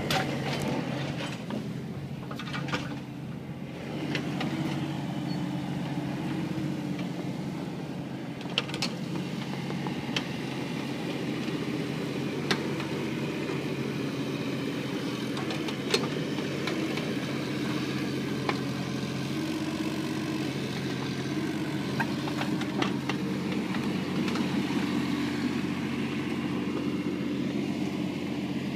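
Mini excavator engine running steadily, its pitch shifting slightly at times as it works. A few sharp knocks are scattered through it.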